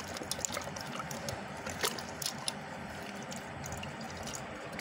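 A hand squeezing and kneading freshly churned butter in a pot of buttermilk: wet squelching and sloshing with small irregular splashes and drips.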